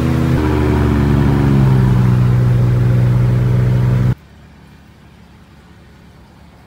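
Searey amphibious aircraft's pusher engine and propeller running at high power on the takeoff roll, heard from the cockpit, its pitch stepping up twice in the first two seconds. It cuts off suddenly about four seconds in, leaving only a faint steady background.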